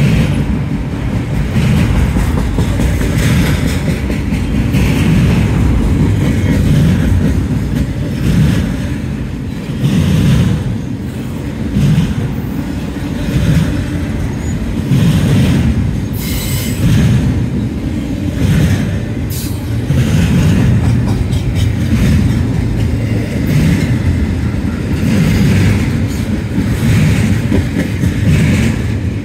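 Cars of a long double-stack intermodal container train rolling past: a steady, loud low rumble of freight-car wheels on the rails, with occasional sharp clanks.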